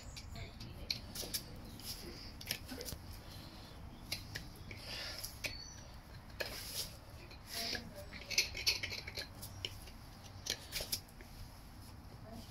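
Farrier's hoof knife paring horn from the bars of a horse's hoof: short, irregular scraping cuts, some louder around the middle and near the end.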